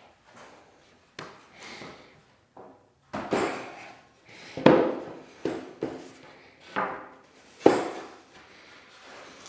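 Wooden boards knocking and thumping as a bookcase shelf is handled and fitted into place: a series of sharp knocks, the loudest about halfway through and again near the end.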